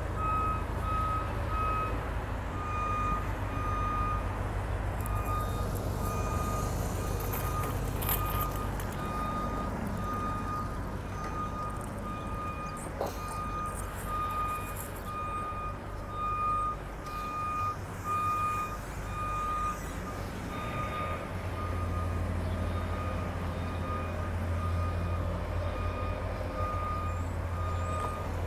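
Reversing alarm beeping in a steady on-off pattern, one high note repeated over and over. Underneath it is a low rumble of engines and traffic that gets stronger about two-thirds of the way through.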